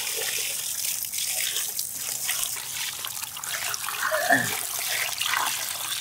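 Water poured in a steady stream from a bowl, splashing onto cut pieces of pangas fish in a steel tray as they are washed by hand. A brief voice cuts in about four seconds in.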